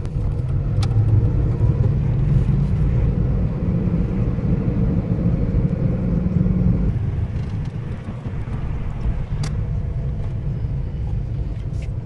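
Car driving along a road: a steady low rumble of engine and tyre noise, easing off a little about seven seconds in.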